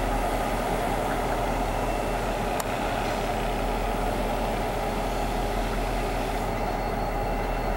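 Diesel locomotive engines running with a steady drone, from a pair of light locomotives moving on the line.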